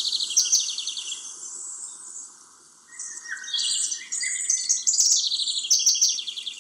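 Several songbirds singing at once, rapid chirping trills overlapping each other, with a brief lull about two seconds in.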